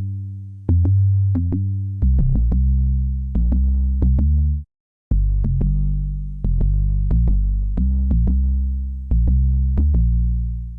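Electronic synth bass loop: deep bass notes changing pitch, each starting with a sharp click and fading, with drum-machine hits. It plays once, cuts out about four and a half seconds in, then starts again after a brief gap.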